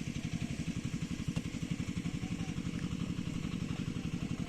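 A small engine running steadily, with an even beat of about ten pulses a second.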